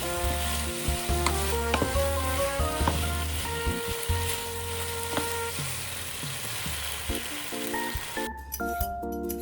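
Chicken and zucchini sizzling as they stir-fry in a pan, with clicks of stirring. The sizzle cuts off suddenly near the end, leaving background music.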